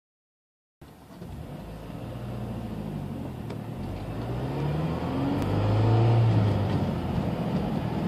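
Mazdaspeed 6's turbocharged 2.3-litre four-cylinder heard from inside the cabin under acceleration, its note rising in pitch as it pulls up through the revs. It is loudest about six seconds in, then the pitch dips.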